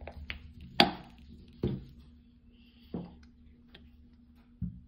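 Handling noise from a Yamaha Moto-4 350 carburetor body being turned over in the hands: a handful of separate sharp knocks and clicks of metal parts, the loudest about a second in.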